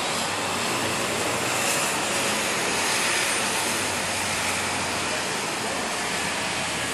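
Heavy thunderstorm rain pouring steadily, a dense hiss that swells slightly about two to three seconds in.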